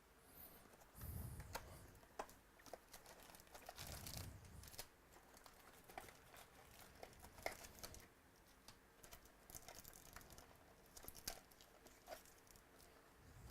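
Faint crinkling and tearing of trading-card pack wrappers, with cards being handled: scattered short crackles and clicks, and a couple of soft low thuds.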